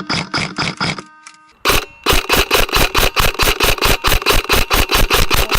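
Airsoft guns firing on full auto: a short burst of about six shots, then about a second and a half in, a long continuous burst at roughly eight shots a second.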